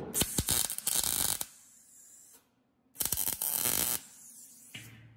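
MIG welding arc crackling and spitting in two bursts of about a second each, tacking a butt joint in thin sheet steel backed by a flattened copper pipe, with an Eastwood MIG 135 welder.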